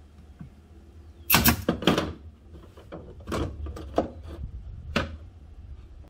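Strips of HDO plywood clacking and knocking together as they are handled into a feeder rim: a loud cluster of sharp clacks about a second in, then several single knocks and clicks.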